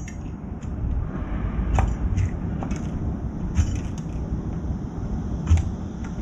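A young crow's beak pecking at food in a stainless-steel bowl and tray: irregular sharp clicks and taps over a steady low background rumble.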